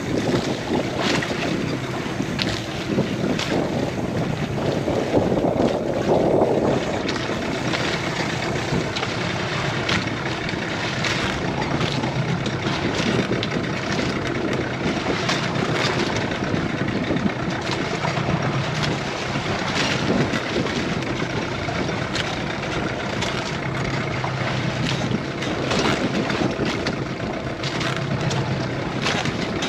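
Boat engine running steadily, with wind buffeting the microphone and short gusts and splashes throughout.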